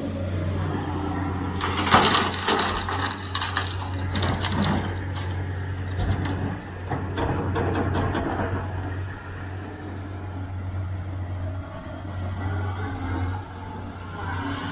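Sumitomo SH490 excavator's diesel engine running steadily under load as it swings and dumps soil. There is a loud hissing rush about two seconds in, and a clatter of dirt and rock falling into the dump truck's steel bed around eight seconds.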